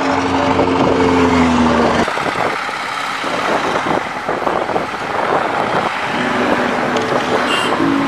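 A motorcycle engine passes close by, its steady pitch dropping as it goes past and cutting off about two seconds in. Then comes rough wind and road noise from riding along the road, with an engine-like tone returning near the end.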